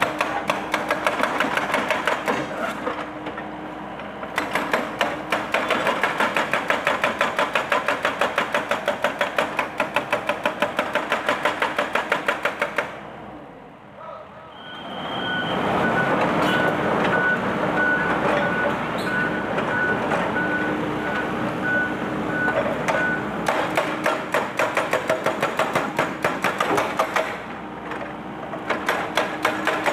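Excavator-mounted hydraulic breaker hammering concrete in rapid repeated blows over the excavator's running engine, breaking up a masonry monument. The hammering stops for about two seconds midway, then starts again, and a high steady beeping runs for several seconds after it resumes.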